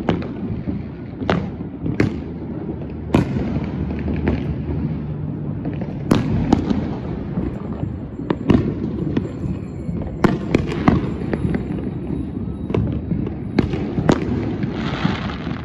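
Many fireworks going off around the neighbourhood: a dozen or so sharp bangs and pops at irregular intervals over a continuous low rumble of more distant explosions, with a short crackle near the end.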